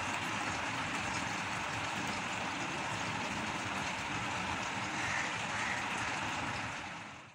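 Steady rushing noise that fades out in the last second.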